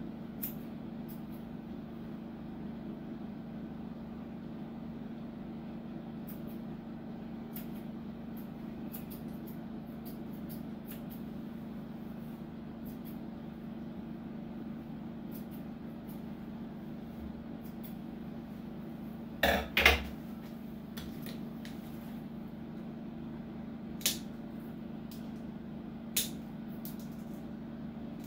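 Grooming scissors snipping faintly at a dog's paw fur over a steady low hum. About two-thirds of the way through there are two loud clanks in quick succession, and two sharper clicks come near the end.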